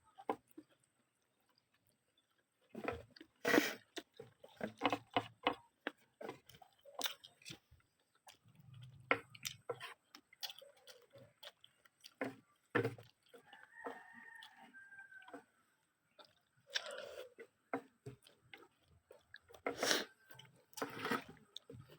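Close-up chewing and biting of adobong maskara, adobo-style pork face, with wet mouth smacks and sharp clicks at irregular intervals.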